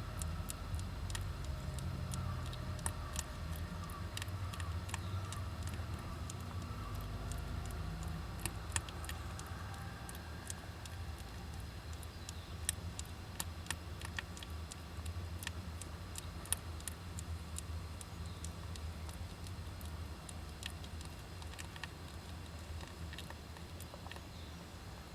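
Irregular sharp clicks and scratches, like Japanese giant flying squirrels' claws on the wood of a nest box, over a steady low rumble.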